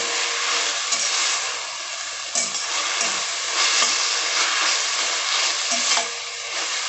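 Vegetables and sauce sizzling in a hot pan as they are stirred, with a steady hiss and a few light knocks and scrapes of the stirring utensil against the pan.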